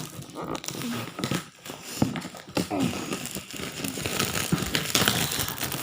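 Plastic shrink-wrap on a board game box being crinkled and torn off by hand, a continuous run of crackles and rustles.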